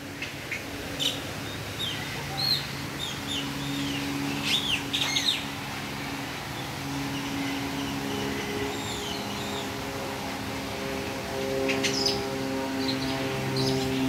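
Small birds chirping in short, quick calls, scattered through the first half and again near the end. Under them, a sustained background music chord comes in a few seconds in and grows louder toward the end.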